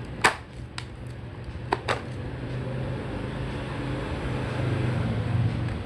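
Several sharp plastic clicks and knocks in the first two seconds as the cordless hand vacuum cleaner is handled, over a steady low hum that grows slightly louder toward the end.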